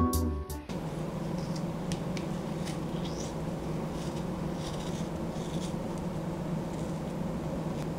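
A small knife peeling a potato by hand, its blade scraping off the skin in faint, irregular strokes over a steady low hum.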